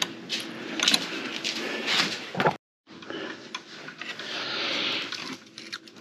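Small metallic clicks and scrapes of wrenches working the valve rocker-arm adjuster and lock nut on a Honda EU3000i generator engine, as the intake valve lash is set and locked. The sound cuts out briefly a little before halfway.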